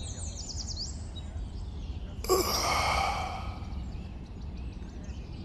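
A person's long breathy sigh, starting about two seconds in and lasting a second or so, over a low steady background hum.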